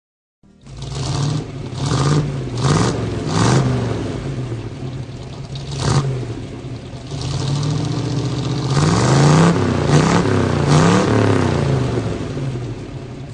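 Corvette engine idling and revved in quick blips, the pitch rising and falling back each time, with one sharp crack about six seconds in. The revs come loudest and closest together near the end.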